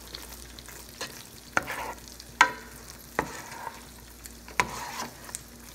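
A utensil stirring and mashing thick mashed potatoes in a pot, knocking and scraping against the pot's side about once a second, over a steady sizzle of steaks frying in oil.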